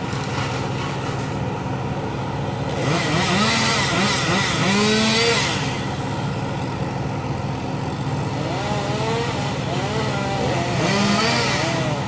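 Tree crew machinery: an engine runs steadily throughout, while a chainsaw revs up and back down several times, about three seconds in and again from about eight seconds in.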